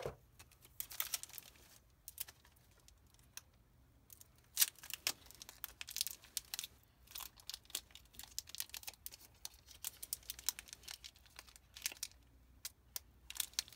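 Packaging of a Pokémon card box being opened by hand: irregular crinkling, tearing and crackling of cardboard and plastic, in scattered clicks with a few short pauses.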